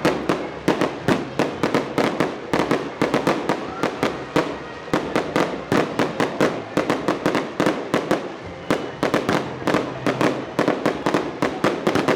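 Fireworks salute: a rapid barrage of aerial shells bursting, several sharp bangs a second, with a couple of brief lulls.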